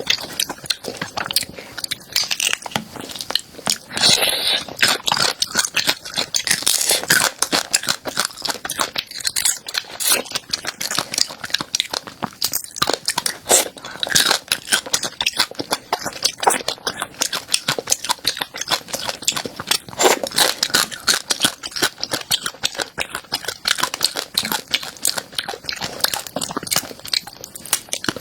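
Close-miked chewing and biting of a crunchy food: dense, irregular crackling crunches all through.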